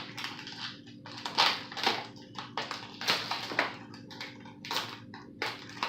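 Plastic snack packaging being crinkled and torn open, a run of irregular sharp crackles.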